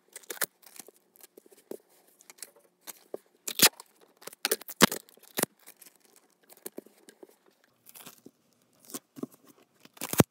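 Masking tape being pulled off the roll, torn and pressed onto paper: an irregular run of sharp rips and crackles, with louder rips about three and a half, five and ten seconds in.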